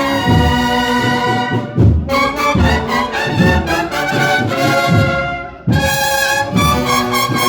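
Brass band music with drums: trumpets and trombones hold sustained notes over low drum strokes about twice a second, with short breaks between phrases about two seconds in and near the end.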